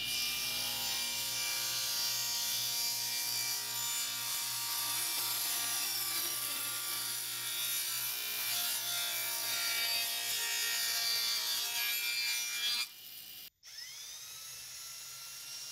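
Table saw cutting a 15-degree bevel along the edge of a padauk panel: a steady motor hum under the high hiss of the blade in the wood. The cutting stops abruptly about 13 seconds in, and near the end a small motor spins up with a rising whine.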